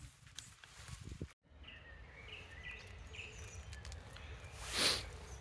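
Outdoor woodland ambience with a small songbird singing short repeated chirped phrases, after a brief dropout in the sound about a second and a half in. Near the end, a short loud rush of noise is the loudest thing.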